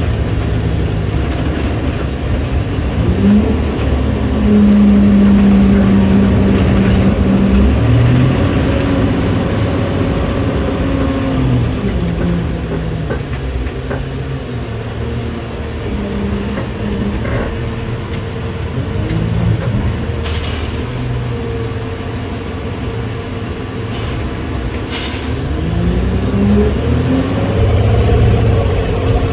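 Garbage truck engine heard from inside the cab, revving up and holding high for several seconds, easing off, then revving up again near the end. Two short hisses come in the later part.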